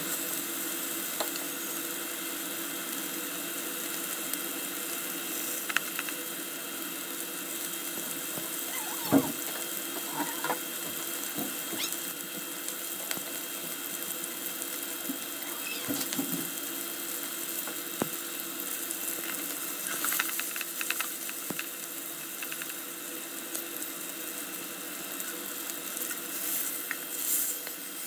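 Wagyu beef patty sizzling in a cast-iron skillet: a steady frying hiss with scattered pops and crackles, the sharpest tick about nine seconds in and more crackling near the end.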